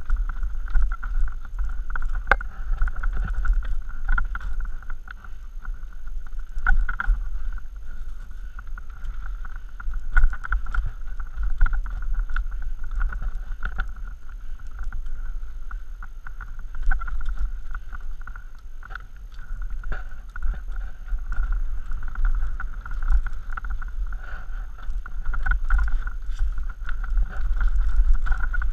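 Mountain bike descending a rocky dirt singletrack: a constant low rumble of wind on the microphone, with frequent rattles and knocks as the bike runs over rocks and ruts.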